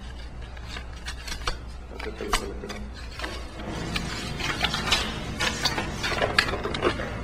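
Irregular clicks and rubbing from objects being handled by hand, growing busier about three seconds in, over a low steady hum.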